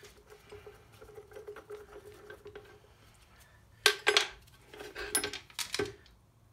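Small metal parts and tools clinking and clattering on metal, with a sharp clank about four seconds in and a second run of rattling clinks around five to six seconds.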